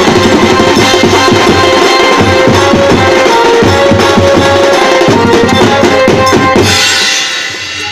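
Live band drumming fast and densely on a set of steel-shelled drums with cymbals, a steady melody line running over the beat. Near the end the drumming stops and a cymbal is left ringing as the sound dies away.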